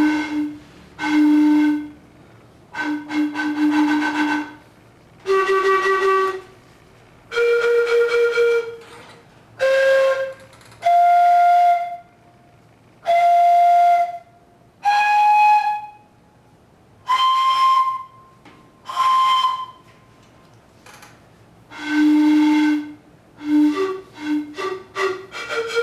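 Flute playing single held notes one after another, each about a second long with short pauses between, climbing step by step from low to high. Near the end it drops back to the low note, then plays a quick run of short notes.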